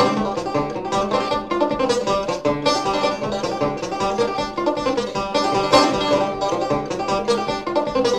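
Open-back banjo played in clawhammer style: an old-time tune in a quick, steady run of picked notes.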